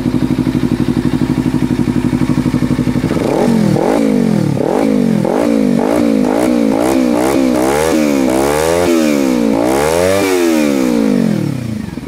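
Kawasaki Ninja 300's parallel-twin engine through an aftermarket M4 slip-on exhaust, idling steadily, then blipped rapidly about twice a second. It finishes with one longer rev that drops back to idle near the end.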